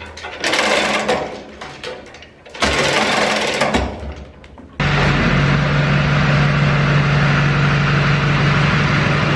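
Irregular clattering and rustling noise, then about five seconds in a motor starts abruptly and runs steadily with an even hum.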